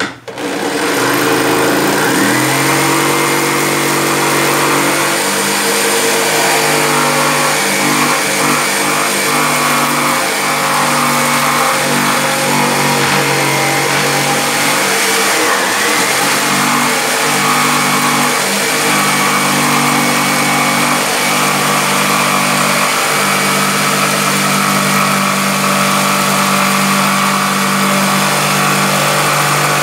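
Corded jigsaw starting up and cutting a handle opening through the top panel of a speaker box. The motor speeds up over the first two seconds, then runs steadily under load as the blade cuts.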